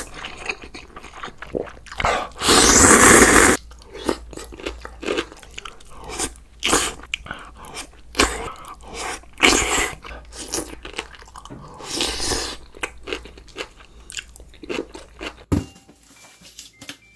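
Close-miked eating: a person crunching and chewing crisp food in irregular bites, with a longer, louder stretch about two seconds in.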